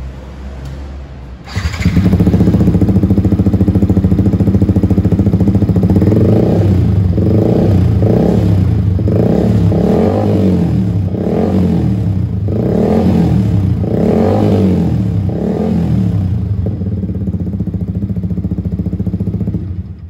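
Yamaha XSR155's single-cylinder engine through an SC Project aftermarket exhaust fitted with a strainer-type dB killer. It comes in suddenly and loud about one and a half seconds in, runs steadily, then is blipped about ten times in quick succession before settling again. The strainer cuts very little of the loudness and brings out more bass, in the rider's judgment.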